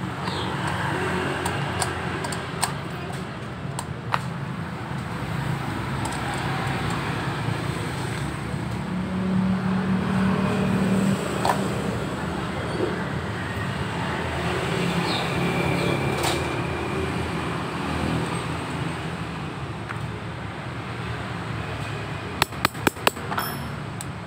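Steady low rumble of motor traffic, with scattered light metal clinks of hand tools and, near the end, a quick run of about five sharp taps.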